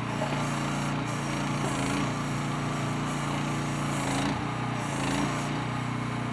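MIVA VA13 mini excavator running, its small engine clattering steadily, with the pitch dipping briefly a few times as the load changes.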